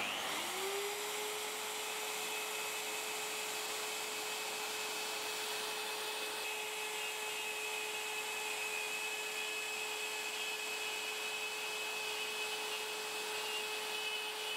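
Bosch router with a quarter-inch spiral bit spinning up at the start and then running at a steady, even whine.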